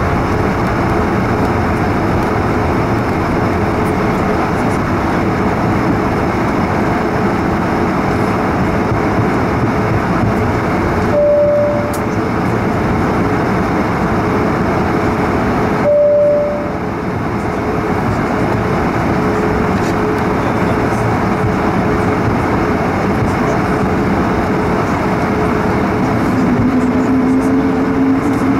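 Cabin noise in a Swiss A220-100 (Bombardier CS100) taxiing: the steady rumble and hum of its Pratt & Whitney PW1500G geared turbofans. Two short single-pitch beeps come about 11 and 16 seconds in. Near the end the engine tone begins to rise as thrust comes up for the takeoff roll.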